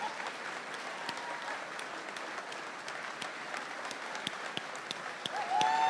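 Large audience applauding steadily. It grows louder near the end, with a few held cheers.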